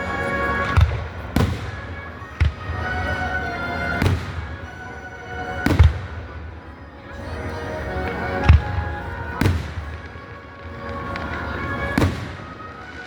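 Fireworks display: about eight sharp aerial shell bursts at irregular intervals, with music playing throughout.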